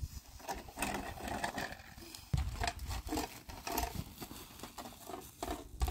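Large cloth rustling and crinkling as it is lifted, shaken out and folded by hand, with a dull thump a little over two seconds in.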